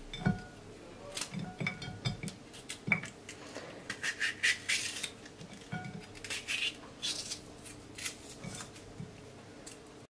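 Chef's knife slicing a red bell pepper into strips on a ceramic plate, the blade clicking and scraping against the plate with each cut. The cuts come irregularly.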